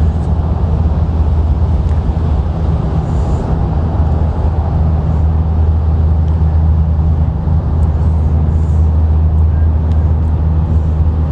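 A steady low hum of an engine or motor running, with no change in pitch.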